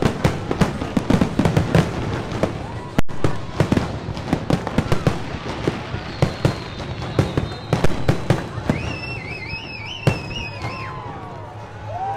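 Fireworks finale: shells bursting and crackling in rapid succession, a dense run of bangs that thins out and fades near the end. A high wavering whistle sounds briefly over the last bangs.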